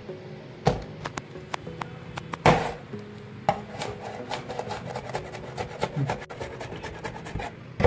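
Kitchen knife chopping green chilies on a cutting board: a quick run of light taps from about four seconds in, after a few louder knocks, over soft background music.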